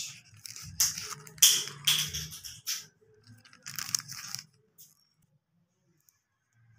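Sheets of paper and thin plastic packets rustling and crinkling as they are handled, in irregular bursts that stop about four and a half seconds in.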